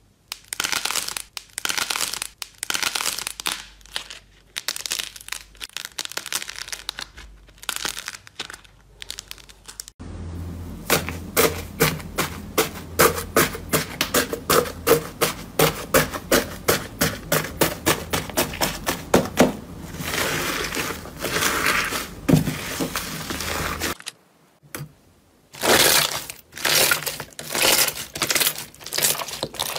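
Slime handled by hand: crackling squishes as a soft clay figure is squeezed, then a rapid, even run of crackling pops, about three a second, as fingers press into bead-filled yellow slime, then louder crinkling bursts as pink slime is pressed and stretched near the end.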